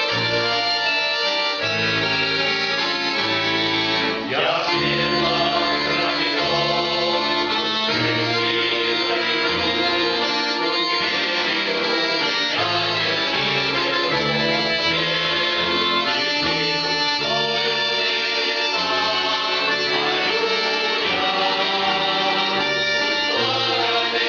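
A Russian folk-choir song with the accordion carrying the tune over a steady sequence of bass notes; some singing is mixed in.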